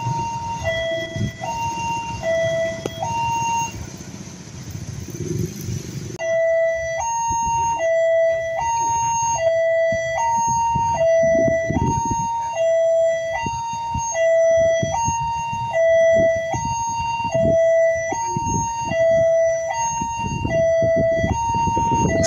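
Railway level-crossing warning alarm sounding a repeating two-tone signal, a low note and a high note alternating about once a second each pair. It is fainter under wind noise at first and turns louder and clearer about six seconds in.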